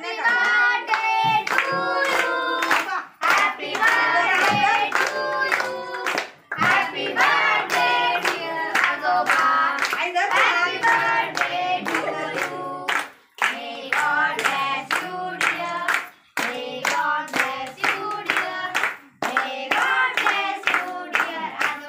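A group of adults and children singing together in unison while clapping their hands to a steady beat, with short breaks between sung phrases.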